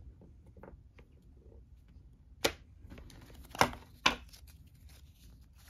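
Game cards and small pieces handled and set down on a wooden table: faint rustles and ticks, with three sharp taps between about two and a half and four seconds in.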